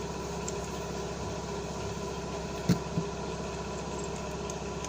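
Steady mechanical hum in the room. Two light knocks, a few tenths of a second apart, come just past the middle and are the loudest sounds.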